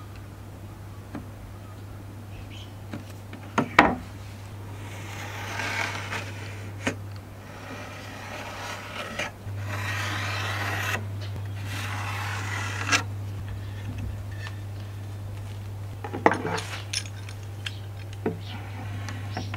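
Pencil scratching along a pine board as a line is drawn, in two stretches, with sharp knocks and clinks as the wood and a steel rule are handled. Near the end come clicks and knocks of a steel C-clamp being fitted and screwed onto the board, all over a steady low hum.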